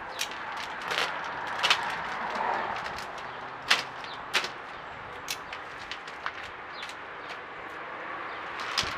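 Irregular sharp clicks and knocks, about eight of them, the sharpest under two seconds in and near four seconds, over a steady background hiss.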